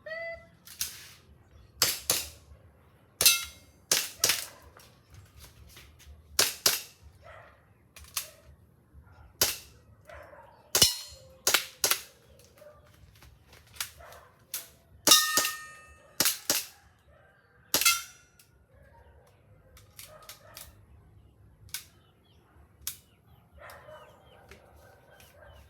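Airsoft gun firing single shots at an irregular pace, about twenty sharp cracks, some followed closely by a second snap. One shot about fifteen seconds in is followed by a brief ringing.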